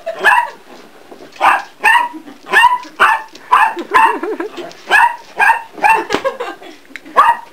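Dog barking over and over, about two barks a second, with a short pause about a second in. The barking comes over the toy in a tug-of-war game.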